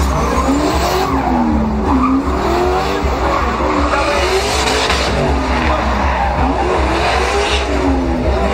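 Pickup truck doing burnout donuts: the engine is held at high revs, its pitch rising and falling over and over, while the rear tires spin and screech on the pavement.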